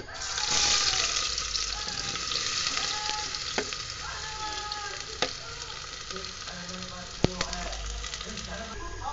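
Chopped onions hitting hot oil in an aluminium pressure cooker, setting off a sudden loud sizzle that settles into a steady frying hiss. Three sharp knocks stand out over it, the last the loudest.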